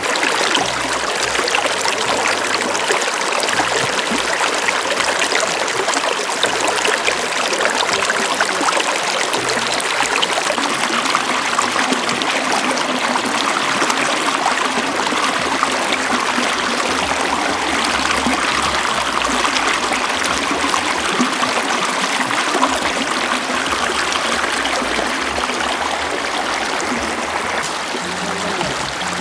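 Shallow, rocky river flowing and splashing over stones close to the microphone, a steady water sound.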